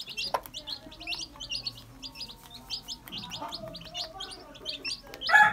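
Young chicks peeping repeatedly in short high notes, several a second, while they feed around a broody hen, with her faint low calls underneath. Right at the end a rooster starts to crow loudly.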